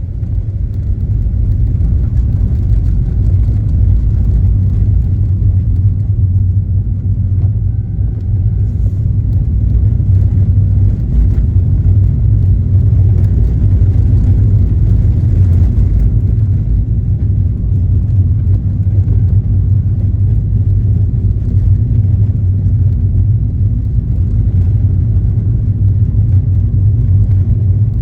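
Steady low rumble of a car driving, road and engine noise, growing a little louder over the first couple of seconds and then holding even.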